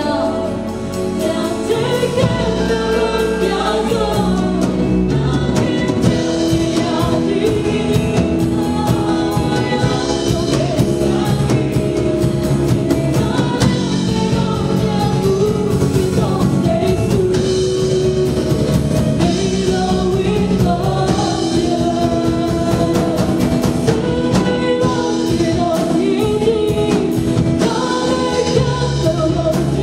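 Live gospel praise-and-worship band: women singing lead into microphones over acoustic guitar, keyboard and a drum kit keeping a steady beat.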